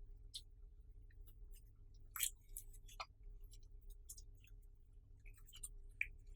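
Clear slime being kneaded and pressed by hand, giving faint, irregular sticky clicks and small pops, with a sharper pop about two seconds in, over a low steady hum.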